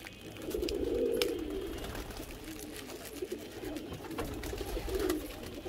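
Pigeons cooing in low, repeated phrases, with faint crinkling of a plastic bag as flour is squeezed out of it.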